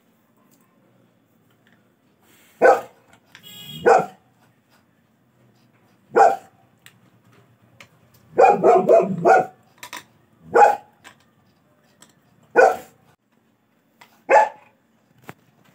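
Golden retriever barking: single loud barks a second or two apart, with a quick run of several barks about halfway through.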